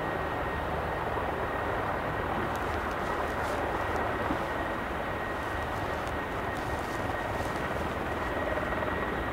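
Mil Mi-35 helicopter's twin turboshaft engines and main rotor running steadily as it lifts off into a low hover, with a thin high turbine whine over the dense rotor noise.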